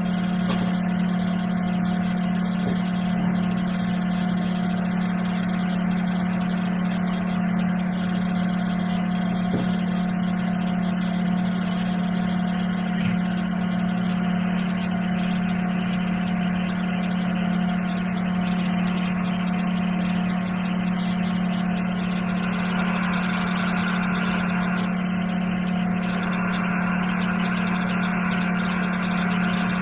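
Hot air rework station blowing at about 420 °C, its fan giving a steady hum with air hiss. A higher tone joins twice in the last third.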